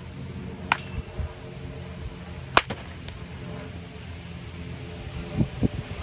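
Baseball bat striking short-toss pitches: two sharp cracks, about a second in and about two and a half seconds in, the second louder and followed by a faint knock.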